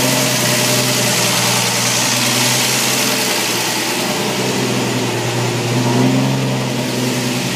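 Car engine running at a steady fast idle while it warms up from a cold start, its fast idle solenoid still engaged.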